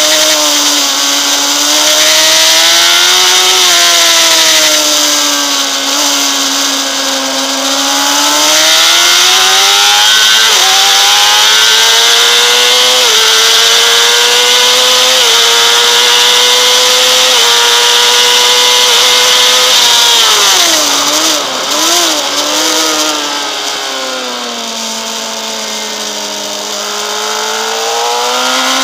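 Honda CBR600RR inline-four engine at high revs on track: it revs up along the straight, falls with a few quick wavering blips about two-thirds through, runs lower through the corner, and climbs again near the end. A steady hiss of wind rush lies under it.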